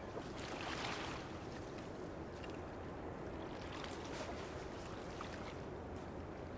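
Water washing and lapping at the shore, over a steady low rumble of ship traffic, with a louder surge of wash about a second in.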